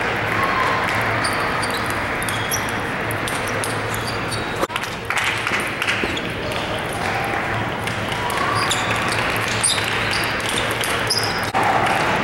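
Table tennis balls clicking off tables and paddles in rallies at many tables at once, as many short sharp ticks over steady crowd chatter and a low hum in a large hall.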